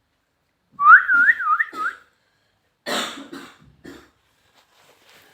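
A warbling whistle that rises and falls about four times in a second. About a second later comes a short, rough, hoarse sound.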